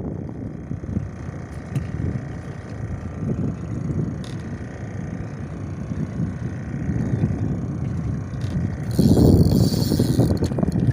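Wind rumbling on the microphone on a small boat, with a faint steady hum underneath. A louder rushing gust with hiss comes about nine seconds in.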